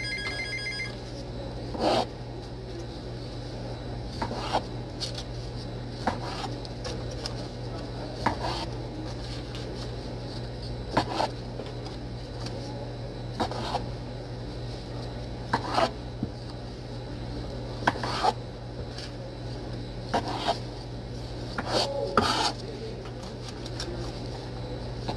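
Kitchen knife slicing cherry tomatoes in half on a plastic cutting board, one sharp knock of the blade on the board about every two seconds, over a steady low hum.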